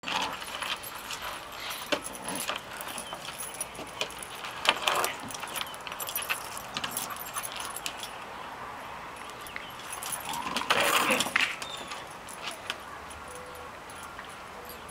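Two dogs play-wrestling, their chain collars jangling and clinking, with scuffles and clicks of paws on wooden deck boards; the loudest scuffle comes about eleven seconds in.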